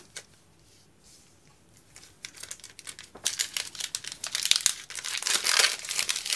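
Foil Pokémon booster pack wrapper being torn open by hand, crinkling and crackling. It starts about two seconds in and is loudest near the end.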